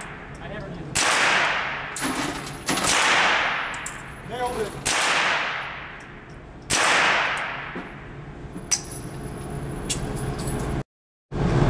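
Smith & Wesson M&P 15-22 rifle firing .22 LR, four single shots about two seconds apart, each ringing out with a long echo in the indoor range. A faint click follows near the end as the rifle is handled.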